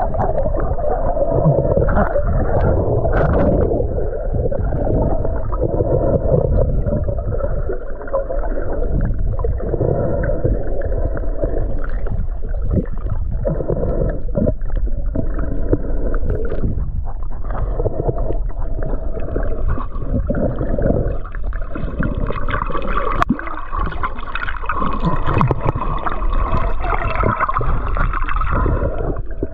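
Water heard underwater by a snorkeler's camera: continuous muffled sloshing and gurgling over a low rumble.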